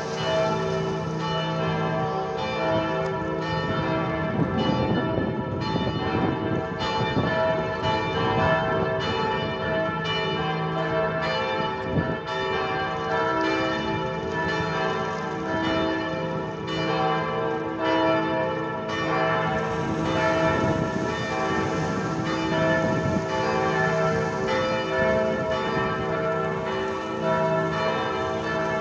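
Several church bells ringing together in a continuous peal, struck over and over so that their tones overlap and ring on.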